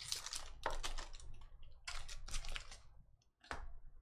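Foil wrapper of a trading card pack crinkling and tearing as the pack is opened and the cards are pulled out, in a few short rustling bursts with a brief crackle near the end.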